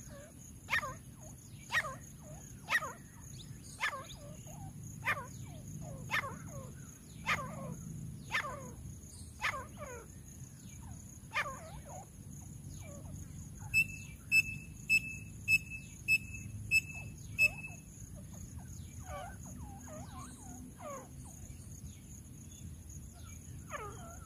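Grey francolins calling: harsh calls that each fall in pitch, about one a second, then a quick even run of about seven short, sharp, high notes, and a few weaker falling calls near the end.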